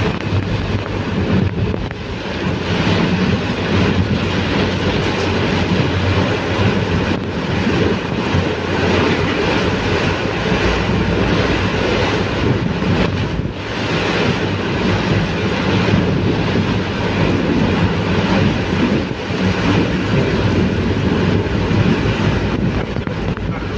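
Heavy rain driven by strong wind: a loud, steady rushing noise.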